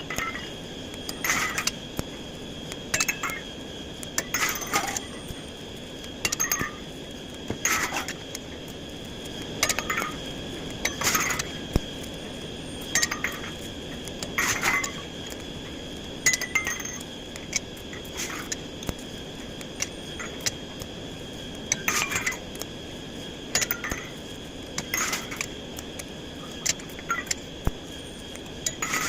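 Irregular sharp metallic clinks and taps, one every second or so, each with a short ring, as steel pieces are struck or knocked together. A faint steady high whine runs underneath.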